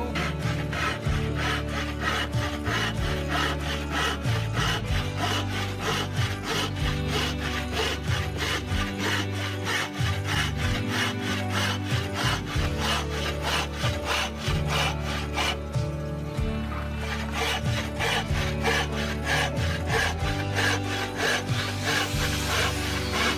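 Hand saw cutting through wood in quick, even strokes, about four a second, with a brief pause partway through. Background music plays underneath.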